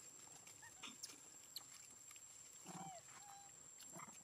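Faint macaque calls: a short call with a bending pitch about three seconds in, a brief high note just after it, and another short call near the end, with a few soft clicks earlier.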